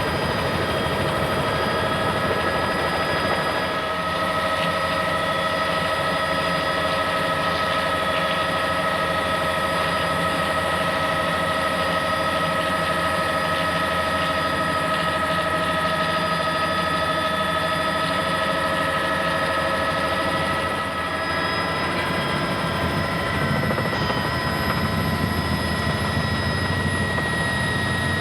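News helicopter running steadily: rapid rotor chop under a steady multi-tone turbine whine.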